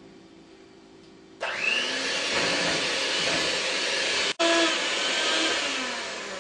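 Hand-held electric kitchen mixer switched on about a second and a half in, whirring steadily as it beats a mixture in a bowl. It breaks off for an instant about four seconds in, then fades away near the end.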